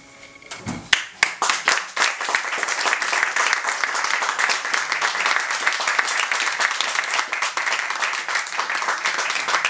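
The last held notes of a grand piano fade away, then an audience breaks into applause about a second in, a few separate claps quickly filling out into steady clapping.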